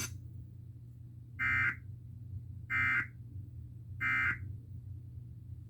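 Emergency Alert System end-of-message tones: three short, identical bursts of SAME digital data screech, about a second apart, signalling the end of the alert.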